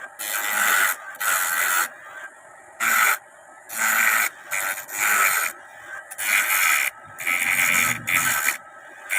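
Metal parts on a tractor wheel being rubbed down by hand to free them: a series of uneven rasping strokes, about one a second, each under a second long, some carrying a high scraping note.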